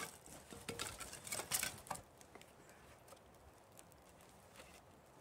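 Light knocks and scrapes of split firewood pieces being set against a log on a wooden chopping block, a handful in the first two seconds, then only faint ticks.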